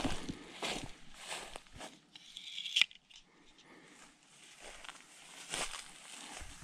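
Footsteps crunching through dry grass, about one every two-thirds of a second. About two seconds in, the blade of a Tolsen folding pruning saw swings open with a short scrape and locks with a sharp click.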